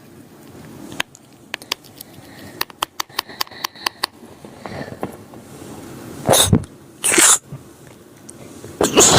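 A girl sneezing three times, short loud explosive sneezes about six, seven and nine seconds in, the last running on at the end; the sneezes are self-provoked. Before them, a scatter of small sharp clicks.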